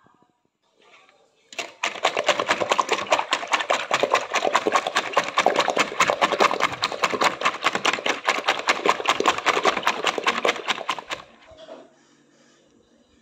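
Hand-held spring whisk beating eggs in a plastic bowl, a fast, even clatter of metal wire against the bowl and the frothing egg. It starts about a second and a half in and stops shortly before the end.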